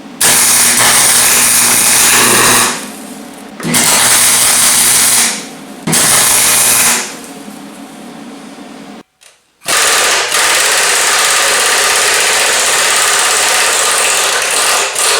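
Electric welder arc in three short bursts of one to two and a half seconds, then one longer run of about five seconds near the end, each with a low steady hum under it. It is welding onto a spinning bumper bolt so that it can be turned out.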